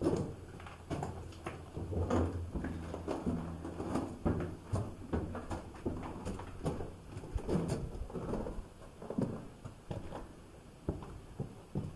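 Footsteps scuffing and crunching on the gravel and rubble floor of a rock-cut tunnel: irregular steps, one or two a second, with an enclosed sound.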